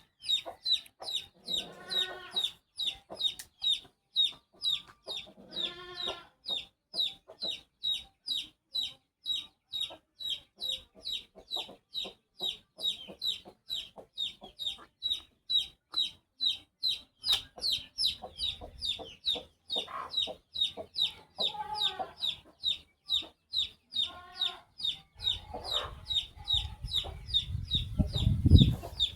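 Chick peeping continuously, short shrill falling peeps about two or three a second, with a few lower, longer calls mixed in. Near the end a low rumble builds, loudest about a second before the end.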